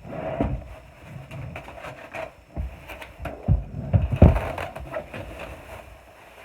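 Cardboard and foam packaging rustling and crackling as a PC case is pulled from its box, with a few dull thumps of the case against the packaging, the loudest about three and a half and four seconds in.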